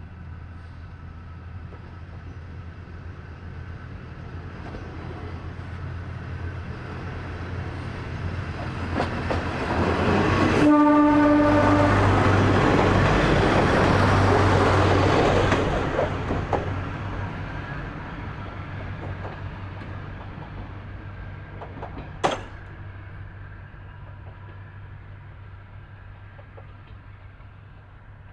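A Kominato Railway diesel railcar approaching, giving one short horn blast as it comes close, passing with its engine and wheels loud, then fading away. A single sharp click comes about two-thirds of the way through.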